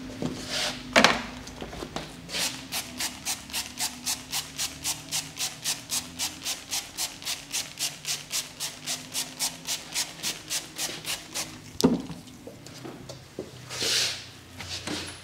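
Fast rhythmic rubbing, about four strokes a second, of hands working over skin and hair in a barber's head and neck massage. There is a sharp knock about a second in and another near the end.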